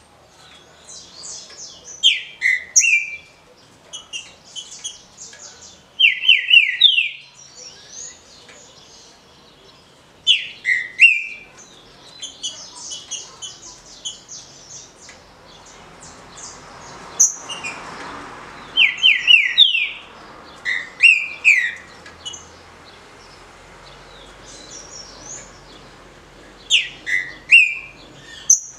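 A caged green-winged saltator (trinca-ferro, Saltator similis) singing its short song: about eight loud phrases of quick descending whistled notes, a few seconds apart, with fainter high chirps between them.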